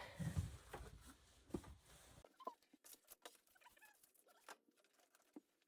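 Faint scattered rustling and light clicks of electrical wiring being handled and pushed into place.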